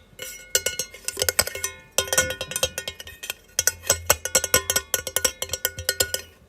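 Metal plate clicking in fast, irregular runs of sharp clicks, each with a brief metallic ring at the same few pitches. The runs come in bursts separated by short pauses of under a second.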